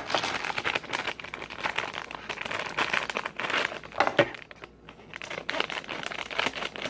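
Plastic blind-bag packaging of a Thomas Minis toy train crinkling and crackling as it is handled and opened, with a brief quieter lull a little before two-thirds of the way through.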